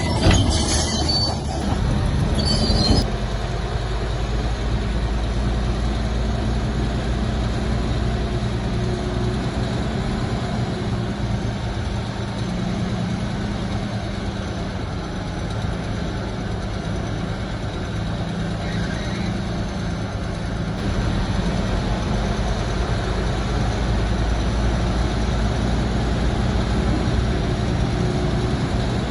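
Crawler bulldozer's diesel engine running steadily under load. In the first three seconds its steel tracks squeal and clank.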